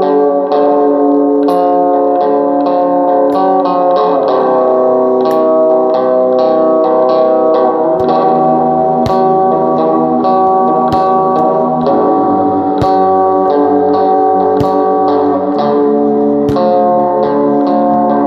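Music: plucked guitar playing a continuous melody over sustained chords, with a bass line coming in about eight seconds in.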